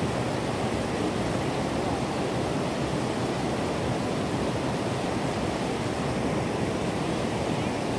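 Steady rushing of creek water cascading over rocks in a small waterfall.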